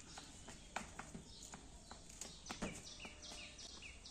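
A bird calling in the background, a short high note repeated about three times a second, starting a bit past halfway through. A few faint taps are scattered through the quiet before it.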